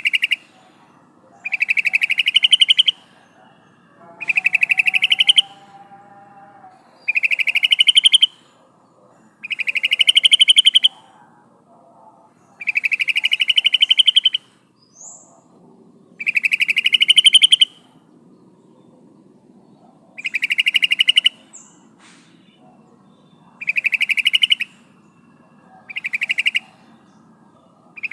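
Female yellow-vented bulbul (trucukan) giving her call to the male: a rapid chattering trill about a second long, rising slightly in pitch, repeated about ten times with short pauses between.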